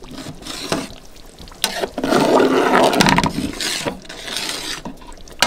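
A long metal stirrer knocking and scraping in a large aluminium pot of simmering chicken curry, with a loud rushing noise from about two seconds in that lasts nearly two seconds.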